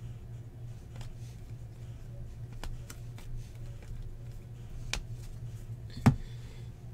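Baseball trading cards handled and flipped through by hand: scattered soft card clicks and slides, with one sharper snap about six seconds in, over a steady low hum.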